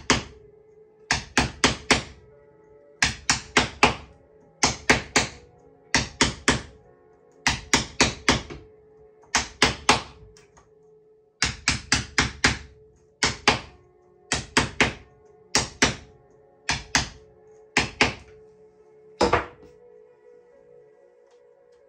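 A mallet tapping a caning tool to drive pressed cane into the seat's groove: quick bursts of three or four sharp knocks, repeated every second or two, stopping a couple of seconds before the end.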